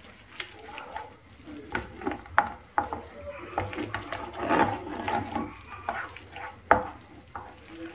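Wooden spatula stirring and scraping grated green squash and egg around a non-stick frying pan as the mixture fries, with irregular knocks of the spatula against the pan; the sharpest knock comes near the end. The egg is cooking into the squash to bind the filling.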